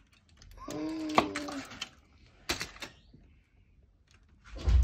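Aluminium foil crinkling and a knife cutting into a cake, with scattered crackles and clicks about two and a half seconds in. A short wordless vocal tone comes about a second in, and there is a low bump near the end.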